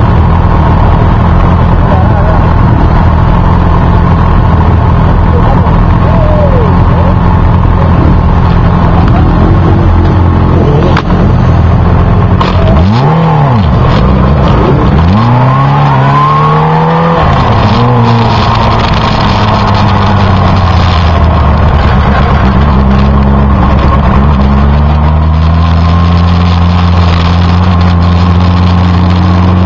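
Motorcycle engines idling together at a standstill, then several quick throttle blips about halfway through, the revs rising and falling sharply. Near the end the engine pitch climbs steadily as the bikes pull away and accelerate.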